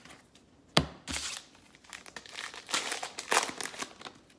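Crinkling of a trading-card pack's wrapper being handled, in a run of irregular crackles, with one sharp tap about a second in.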